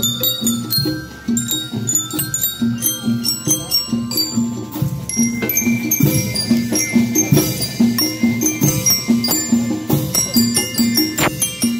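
School rhythmic band playing: metal bell lyres ring a quick melody of short notes over a steady beat of marching drums.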